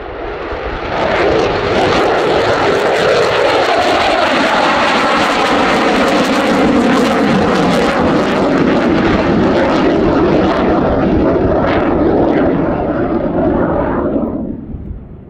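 F-22A Raptor's twin Pratt & Whitney F119 turbofan jet engines, loud as the fighter flies past in a climb. The noise builds about a second in, holds steady, then falls away quickly near the end.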